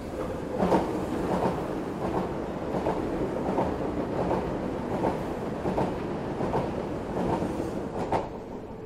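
Passing train: a steady rumble with the wheels clacking over rail joints in an even rhythm, about one clack every three-quarters of a second. It swells in at the start and fades out after the last clack near the end.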